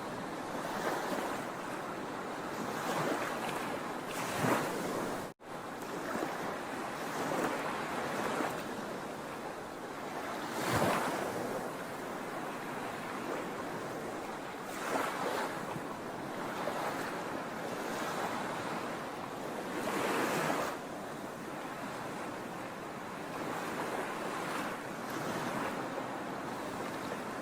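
Sea waves washing onto the shore: a steady hiss of surf with a wave surging louder every five or six seconds. The sound cuts out for a split second about five seconds in.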